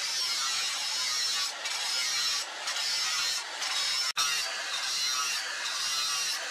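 Angle grinder with an abrasive disc grinding a steel knife blade, a steady high hiss of disc on metal that dips briefly several times, with a split-second break just after four seconds.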